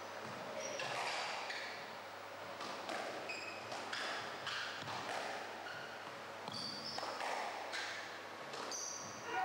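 Squash rally: the ball smacks off rackets and walls in irregular sharp knocks, with short high squeaks of court shoes on the wooden floor.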